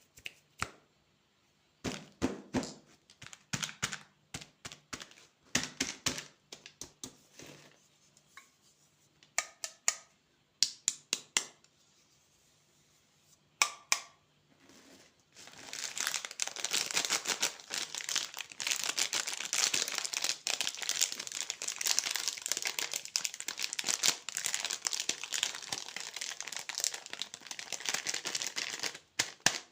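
Plastic candy packaging crinkling and tearing as it is opened: scattered crackles at first, then dense, continuous crinkling from about halfway through.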